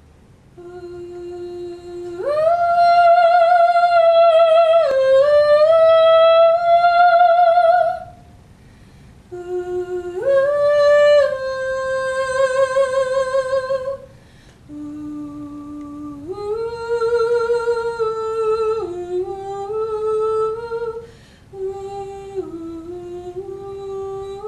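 A woman's voice singing a wordless melody unaccompanied, in four long phrases of held notes with vibrato and short breaks between them, the first phrase the loudest.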